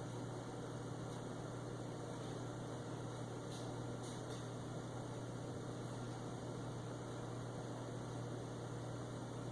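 Steady low electrical hum over a constant hiss, with a couple of faint ticks about three and a half and four seconds in.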